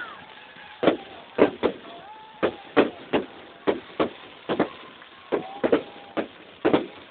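Fireworks going off in a rapid, irregular string of about fifteen sharp bangs.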